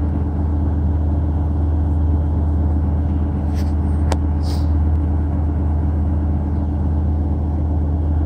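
Steady low mechanical hum, with a few faint clicks about halfway through.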